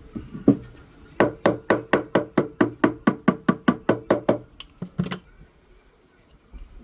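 Quick, even tapping on an 18 karat gold ring's shank on a ring mandrel, about five light strikes a second for some three seconds, then a few looser taps, to true up the shank.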